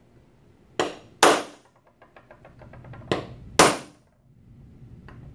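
Ball-peen hammer striking a center punch held on 10-gauge sheet stock, deepening prick-punch layout marks into center-punch marks for drilling. Four sharp hits come in two pairs, the second hit of each pair the louder.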